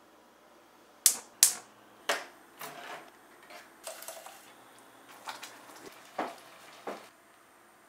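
Kitchen sounds made up of a series of separate sharp clicks and clacks, the two loudest close together about a second in, as a gas stove's control knob is turned. About four seconds in, canned food slides from the can into a steel saucepan, heard as a short soft pour.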